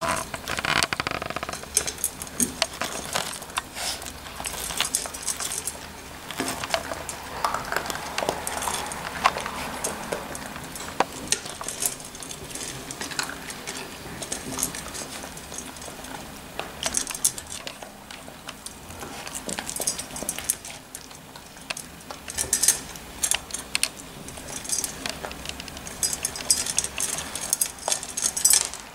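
Puppies eating dry kibble from a stainless steel bowl: irregular clinks and rattles of kibble and muzzles against the metal bowl.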